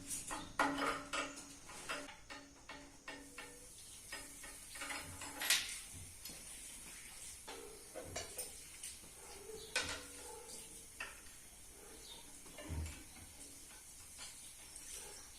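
Small metal parts and tools clinking and tapping in irregular knocks, with a couple of sharper clanks about five and ten seconds in.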